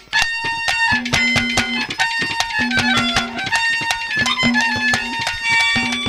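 Instrumental interlude of Haryanvi ragni folk music: a reedy melody instrument plays held notes and runs over fast, steady drum strokes.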